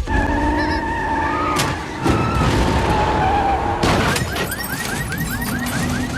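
Disaster-film sound mix: dramatic music under crashing and car noise. About four seconds in, a rapid warbling alarm comes in, about five chirps a second.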